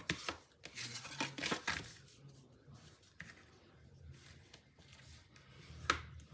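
Scored cardstock being folded and handled: scattered paper rustling and soft creasing, with a sharper click a little before the end.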